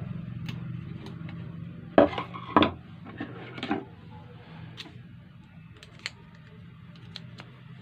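Hard parts and tools being handled while the sewing machine foot pedal is put back together: two loud clattering knocks about two seconds in, a softer rattle, then scattered light clicks over a steady low hum.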